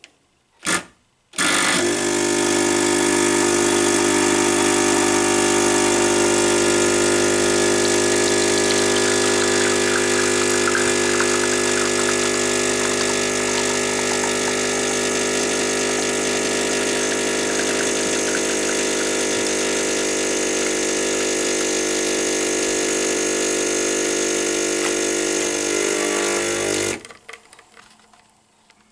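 Gaggia Cubika espresso machine's vibratory pump running with a steady, loud hum for about 25 seconds, then cutting off, with its newly fitted boiler valve. A short burst of sound comes just before the pump starts.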